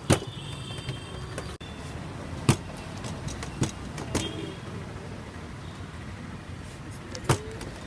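Parotta dough being slapped and thrown onto a steel counter while it is stretched: five sharp slaps at uneven intervals, over a steady hum of street traffic.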